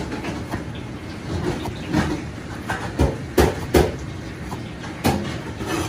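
Chinese cleaver slicing green peppers into rings on a cutting board: irregular knocks of the blade hitting the board, the loudest ones about three to four seconds in and again about five seconds in, over a steady low background hum.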